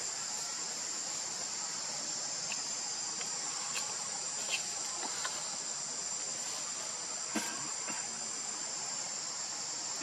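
Steady high-pitched chorus of insects, with a few short clicks about halfway through and again later on.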